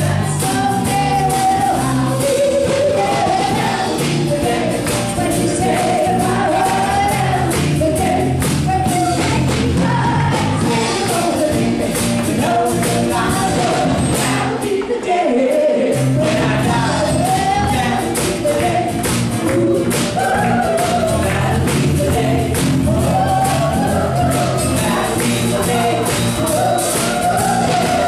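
A live band playing a song with a woman singing into a microphone over a steady beat and bass line. The bass drops out briefly about halfway through, then comes back in.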